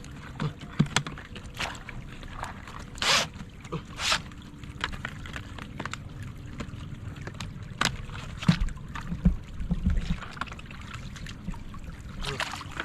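Shallow muddy water splashing and sloshing at irregular moments, with a few short scrapes and knocks, as hands grope through the water.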